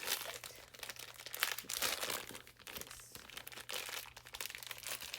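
Packaging being handled during an unboxing: irregular crinkling and rustling that comes and goes in clusters.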